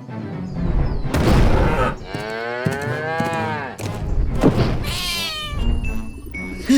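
A cartoon animal's long, drawn-out lowing call that rises and falls in pitch, with a shorter call after it, over background cartoon music.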